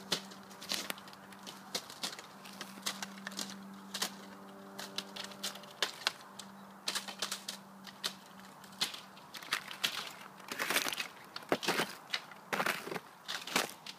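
Thin ice on a frozen pond clicking and cracking in sharp, irregular ticks as a dog walks across it. From about ten seconds in, louder, denser crunching and cracking of ice close by.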